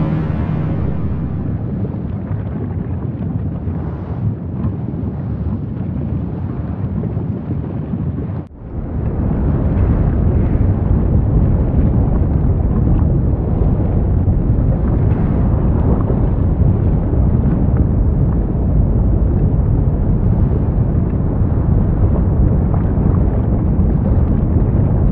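Erupting volcano's steady low rumble, a continuous noise with no tune in it. It cuts out briefly about eight and a half seconds in, then comes back a little louder.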